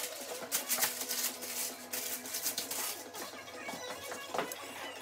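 Background music, with scattered clicks and knocks from kitchen work with dishes and a metal baking tray.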